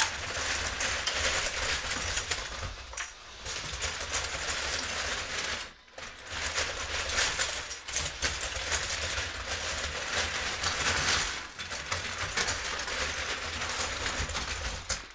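LEGO Technic 4x4 X-treme Off-Roader RC car driving over a pile of loose LEGO bricks: a continuous clatter of plastic bricks rattling and shifting under the tires, mixed with the whir of its electric motors. The clatter breaks off briefly about six seconds in.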